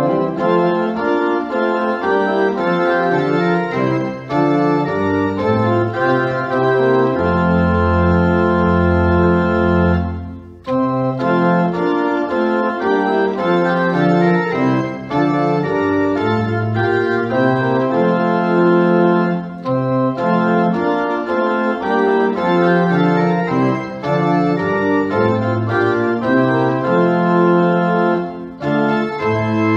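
Organ playing slow, sustained chords in phrases, with a short break between phrases about ten seconds in and another near the end.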